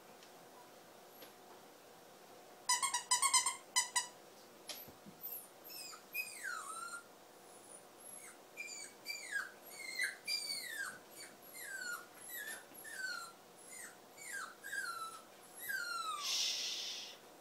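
Nova Scotia duck tolling retriever puppy whining in a long series of short, falling cries, one every half second to second. A quick run of high squeaks comes about three seconds in, and a brief rush of noise near the end.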